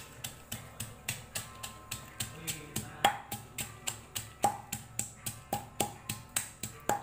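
Pestle pounding chillies, shallots and garlic in a stone mortar into a spice paste: a steady run of sharp knocks, about three a second, with a few harder strikes that ring briefly.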